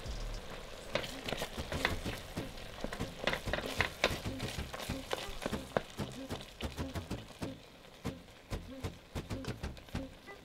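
Wooden spatula stirring and mashing soft pumpkin cubes in a stainless steel pot of simmering sugar syrup, with many small irregular pops and clicks from the bubbling mixture and the spatula.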